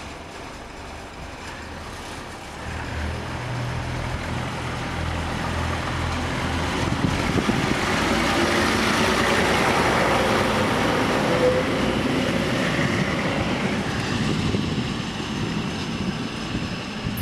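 Historic MAN diesel railbus passing close by on the track: its engine is heard first, then engine and wheel noise build to a peak about ten seconds in as it goes past, and fade away again.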